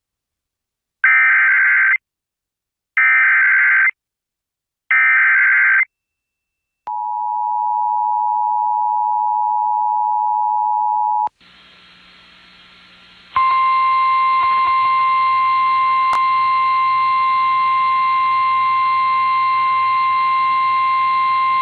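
Emergency Alert System header data sounds three times as short screechy blasts, each about a second long. It is followed by the two-tone EAS attention signal, which holds steady for about four seconds. After a moment of hiss, a single steady alert tone, the NOAA Weather Radio 1050 Hz tone, sounds over radio static for about nine seconds and announces a weather warning.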